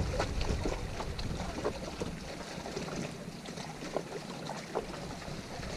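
Wind buffeting the microphone over small waves lapping against a rocky shoreline, with scattered faint clicks.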